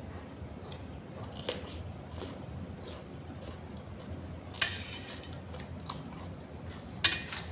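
A person chewing food close to the microphone, with scattered small clicks and two louder crunches, about halfway through and near the end, over a steady low hum.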